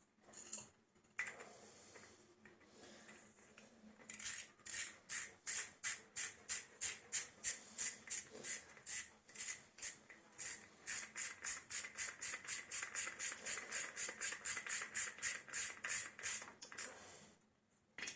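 Recoil pull-starter of a Honda generator being worked by hand, its rope and pulley giving a fast, even run of short scraping strokes, about three to four a second, that starts about four seconds in and stops shortly before the end.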